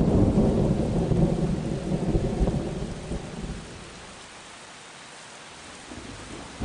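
Thunder rumbling over steady rain, dying away after about three seconds, then a fresh rumble of thunder rising near the end.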